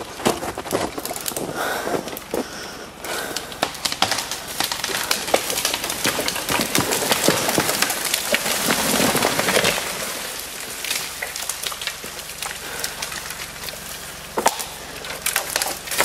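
Eastern white pine falling: wood cracking and splintering, then a louder stretch of crashing through branches in the middle, and a single sharp crack near the end.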